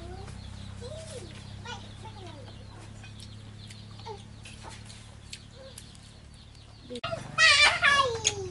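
Faint short animal calls over a steady low hum, then about seven seconds in a loud, high-pitched animal cry that slides down in pitch over a second and a half.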